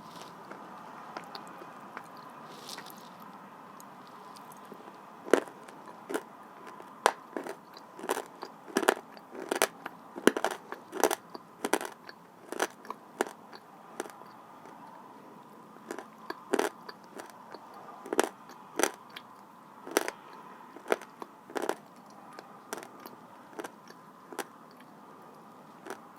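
Close-up chewing of crunchy dry blue Uzbek clay: sharp, irregular crunches, one or two a second, starting about five seconds in.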